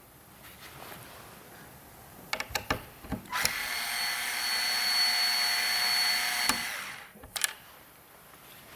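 Small electric screwdriver whirring steadily for about three seconds, driving a screw, with light clicks and taps of handling just before and after.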